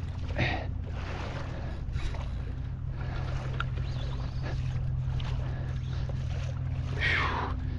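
Water rushing and lapping along a kayak's hull as a hooked jack crevalle tows the kayak against the current, over a steady low hum. There are two brief louder swishes, one just after the start and one near the end.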